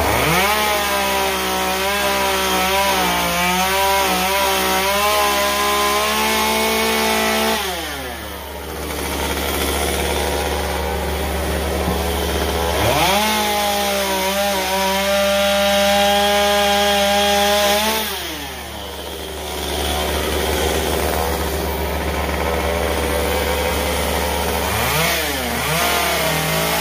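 Small two-stroke carving chainsaw revving up and cutting into a wooden owl carving, its pitch wavering under load. It runs in two long cuts of several seconds each, dropping back to idle between them, then gives a couple of short blips of the throttle near the end.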